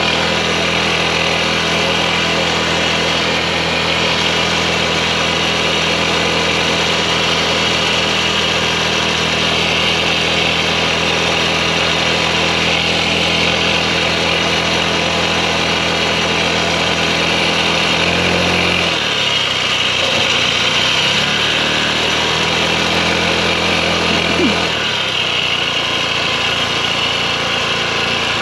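Pocket bike's small engine running steadily as it rides along. About two-thirds of the way through, the engine note drops and wavers for several seconds, then a brief rising blip, and it settles into a steady note again.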